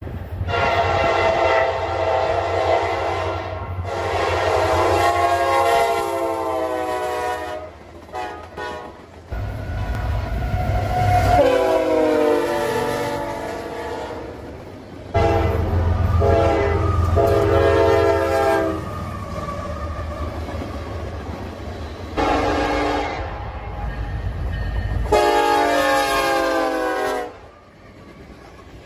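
Diesel freight locomotive air horns sounding a series of chord blasts, with abrupt starts and stops as several clips are cut together; in one blast the pitch slides down as the locomotive passes. A low engine rumble sits under several of the blasts.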